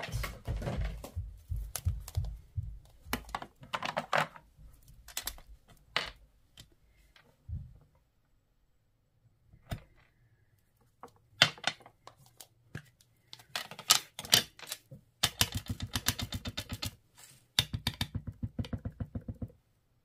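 A stamp being inked on a Memento ink pad: runs of quick, light taps of the stamp against the pad, several a second, with a few sharper clicks of plastic pieces being handled. The longest runs of tapping come near the end.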